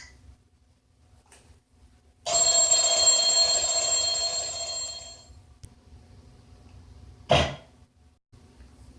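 Cartoon sound effect of a bell ringing steadily for about three seconds, starting a couple of seconds in and tailing off. Near the end comes a single short, sharp hit.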